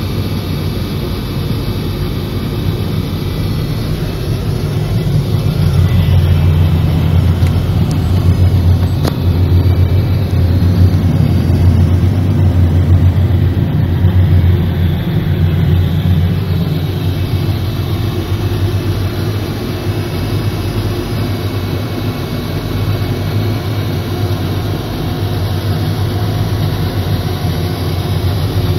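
Low, steady engine rumble heard from inside a moving car's cabin close to a Boeing 747-400. It grows louder about five seconds in and eases off again after about sixteen seconds.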